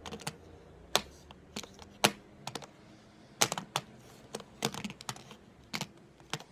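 A run of short, sharp clicks and taps at an irregular pace, about three a second.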